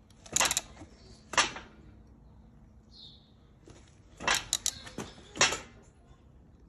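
Hand ratchet clicking in short, sharp bursts, a quick run of clicks about four seconds in, as it turns the centre bolt of a puller drawing the cam sensor pulley off a VW 1.9 TDI camshaft.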